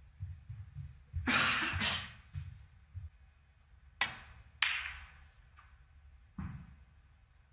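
Quiet snooker arena: a short rush of noise, then sharp clicks of snooker balls about four seconds in, again half a second later, and once more near the end.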